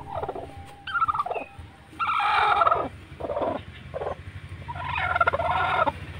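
Broody hen sitting on eggs, calling in a run of about seven clucks, two of them drawn out for about a second, over a steady low hum.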